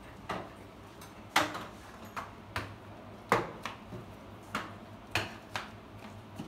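Irregular sharp knocks and clacks, about a dozen, from a child working a long-handled flat mop across a tiled floor.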